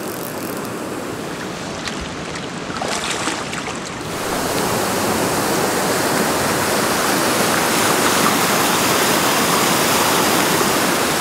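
Steady rush of a mountain trout stream's flowing water, growing louder and fuller about four seconds in.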